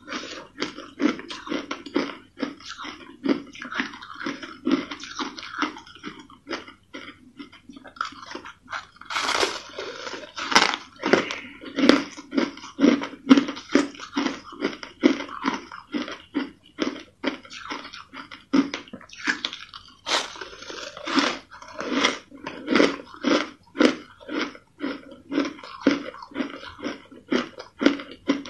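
Crushed ice being bitten and chewed: steady crisp crunching at about three crunches a second, with louder big bites about ten seconds in and again about twenty seconds in.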